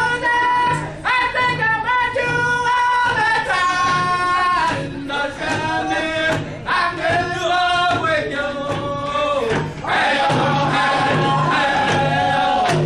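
A group of round dance singers singing a song together, with a steady beat on hand drums underneath.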